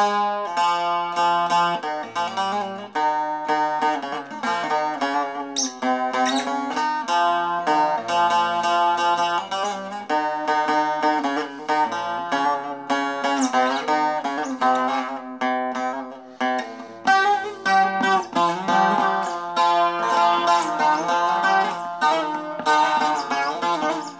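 Saz (bağlama) played solo: a steady stream of quick plucked notes over low drone strings, an instrumental interlude of a Turkish folk song.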